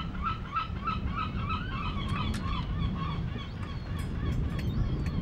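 A bird gives a rapid series of short, honking calls, about three a second, which die away about three seconds in. A steady low rumble lies beneath, and a few sharp clicks come near the end.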